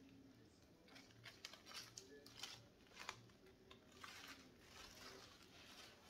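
Near silence with faint scattered clicks and short rustles, small objects being handled and set down.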